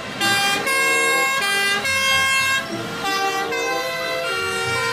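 Fire engine's two-tone siren sounding, its pitch stepping back and forth between notes about every half second.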